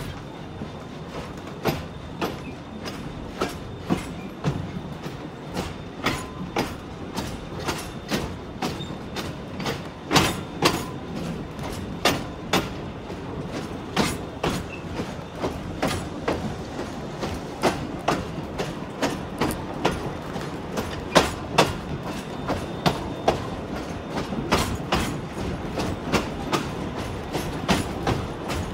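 Heritage passenger carriage running along the track behind a steam train: a steady rumble, with the wheels clicking over rail joints a couple of times a second, more often toward the end.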